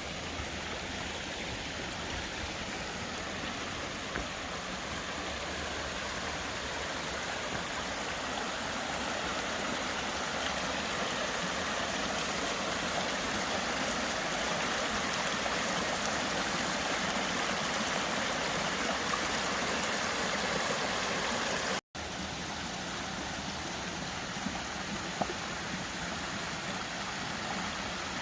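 Stream water running: a steady rushing with no pitch, cutting out for an instant about three quarters of the way through.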